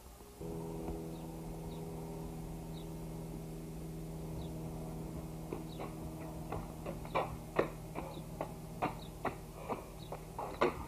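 A steady hum with several pitches starts about half a second in. From about halfway, sharp irregular clicks, roughly two a second, of footsteps on a concrete patio join it.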